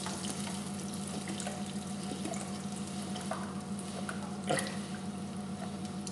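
Cooking cream being poured into a pan of sautéed mushrooms, a steady run of liquid with faint sizzling. A single knock sounds about four and a half seconds in.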